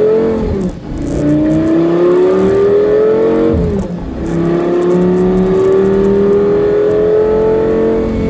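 Lamborghini Gallardo's V10 engine heard from inside the cabin, accelerating through the gears. The engine note climbs, drops briefly at two upshifts (about a second in and about four seconds in), then rises slowly through a longer pull and eases off at the very end. The engine is brand new and still being run in.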